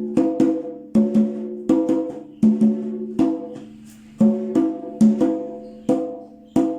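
Conga drum played with open tones (the 'golpe libre', also called 'plena'), struck with alternating hands mostly in quick pairs, each stroke ringing with a clear pitch. There is a short pause a little past the middle.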